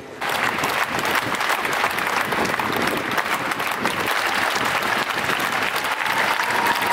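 Large outdoor crowd applauding, breaking out suddenly just after the start and holding steady as dense clapping. A faint held tone comes in near the end.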